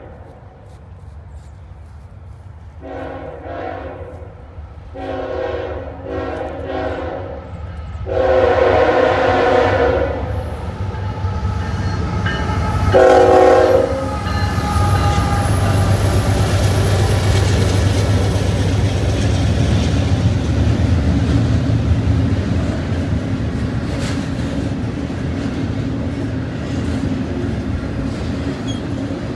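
Norfolk Southern freight train horn sounding several blasts as the train approaches, ending in a short, loud one about halfway through. After that the diesel locomotives (ET44AC, SD70ACE and C44-9W) pass with a steady low engine rumble, followed by double-stack intermodal cars rolling by with wheel clatter.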